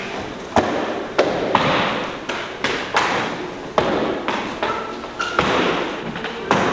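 A performer's foot stamps and body slaps during a Northern Shaolin kung fu form: about ten sharp thuds and slaps at an uneven rhythm, each trailing off in a hissy ring.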